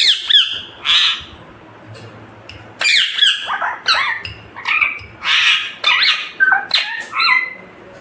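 Indian ringneck parakeet giving loud squawks and chirps, some gliding in pitch and some raspy, in short bursts: a few in the first second, then a dense run from about three seconds in.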